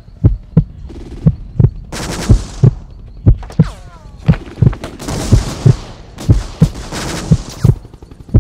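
Film sound design of a pounding heartbeat: a deep double thud about once a second. From about two seconds in it is overlaid with loud bursts of battle noise like gunfire and blasts, with a brief falling whistle near the middle.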